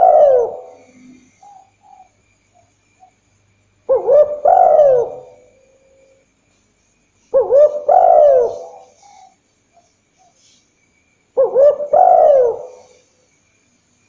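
Spotted dove cooing. One phrase ends just as the sound begins, then three more phrases come about every four seconds, each a quick note or two followed by a longer coo that falls in pitch.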